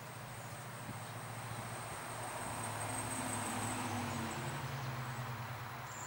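A distant engine passes by: a low hum that swells to a peak about halfway and then fades. A thin, steady high-pitched tone runs underneath and stops a little before the end.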